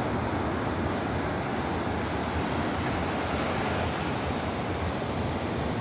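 Sea surf: waves breaking and washing on the shore as a steady rush, with some wind on the microphone.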